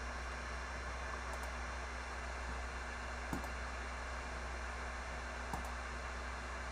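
Steady room tone: a constant hiss over a low hum, with two faint short clicks, one about three seconds in and one about five and a half seconds in.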